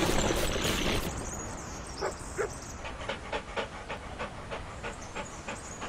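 Dog panting in quick, even breaths, about four or five a second, after a loud rushing noise in the first second.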